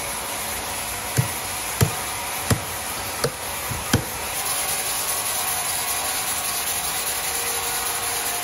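Sawmill machinery running steadily, with five heavy knocks about two-thirds of a second apart in the first half. A little after halfway the machine noise grows louder and brighter.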